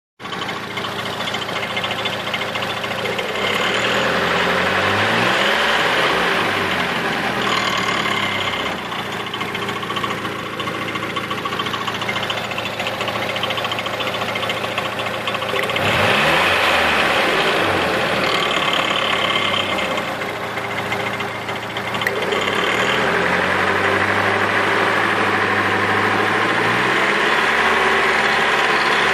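Nissan SR20DET turbocharged four-cylinder engine running and revved up and down several times, with a rattle that turned out to be a failing timing chain tensioner.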